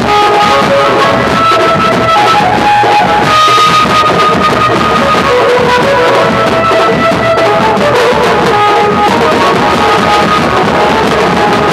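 A street drum band playing loudly: large dhol drums and metal-shelled side drums beaten with sticks in a steady, dense rhythm, with a melody moving in steps over the drumming.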